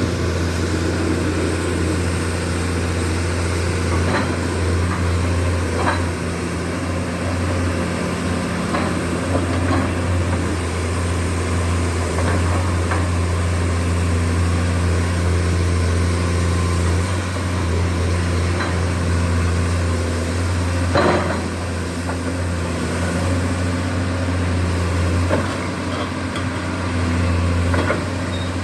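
Komatsu PC200-8M0 excavator's diesel engine running steadily with a deep hum, with a few sharp clicks or knocks scattered through it, one louder about two-thirds of the way through.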